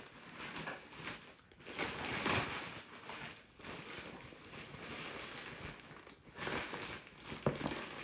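Cardboard mailer and plastic wrapping rustling and crinkling in irregular bursts as a parcel is handled and its contents pulled out.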